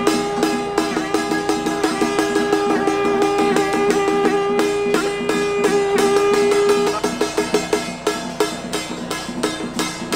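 Taoist ritual master's horn blown in one long, steady note that stops about seven seconds in, over a fast, even beat of percussion.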